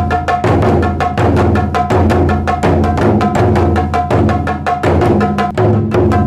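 Taiko drum ensemble playing a fast, driving rhythm: a dense run of sharp strikes over deep drum booms that land about twice a second.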